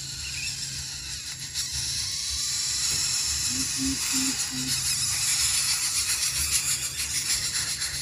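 Greater coucal nestlings hissing at the nest as a parent arrives with food, the hiss growing stronger about halfway through. Four short low notes sound just before the middle.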